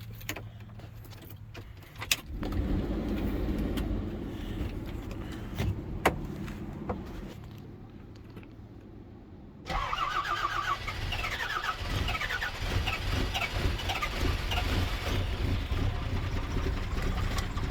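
A 12-valve Cummins diesel engine on a cold start: cranking, then catching and running with a steady diesel clatter from about ten seconds in, a little rough while it is still cold.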